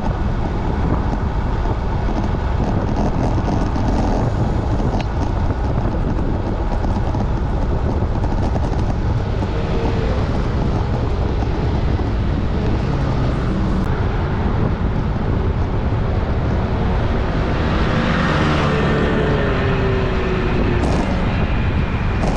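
Steady wind rumble on an action camera's microphone as a road bicycle is ridden at speed, with road and traffic noise underneath and a swell of a passing vehicle about eighteen seconds in.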